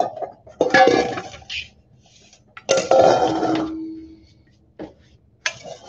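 Stainless steel mixing bowls clanking as they are set down on a stainless steel worktable: two main clatters about two seconds apart, the second followed by a brief ringing from the bowl, then a small click and a last clank near the end.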